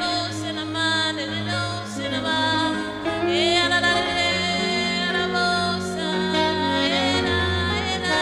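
Live gospel worship music: a lead melody that scoops up into its notes, over long held bass notes and chords.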